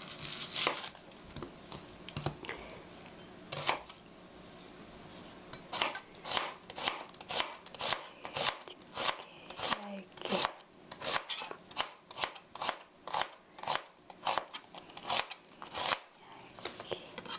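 Chef's knife slicing an onion thinly on a plastic cutting board. A few separate knocks come first, then from about six seconds in a steady run of quick knife strikes on the board, about three a second, which slows near the end.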